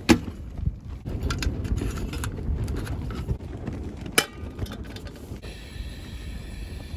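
Strong wind buffeting the microphone as a steady low rumble, with a few clicks of a folding camping gas stove being handled and a sharp metallic knock about four seconds in as a pot is set down on the stove.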